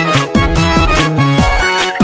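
Instrumental background music with a steady beat and a stepping melody.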